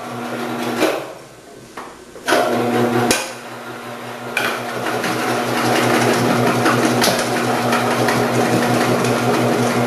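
Omcan HLC 300 vegetable slicer's motor hums briefly, stops, and starts again about two seconds in; from about four seconds in, a dense steady clatter of cucumbers being fed down the chute and cut by the 8 mm disc runs over the hum.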